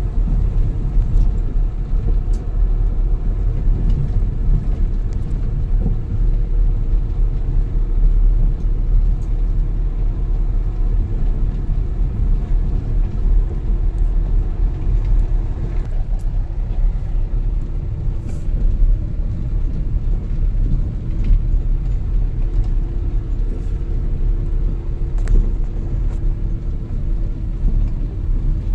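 Car driving on a rough dirt road, heard from inside the cabin: a steady low rumble of tyres and engine, with a few light ticks.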